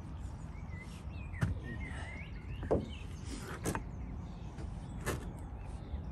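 Timber wall plate being pressed and shifted by hand into its mortar bed on top of a blockwork wall: a few knocks and scrapes, the loudest about two and a half seconds in, over a steady low background rumble.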